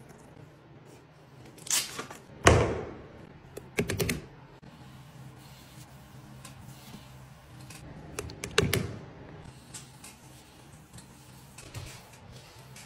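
A few separate knocks and clatters of hard objects, the loudest about two and a half seconds in with a short ring after it, more near four seconds and again after eight seconds, over a faint steady low hum.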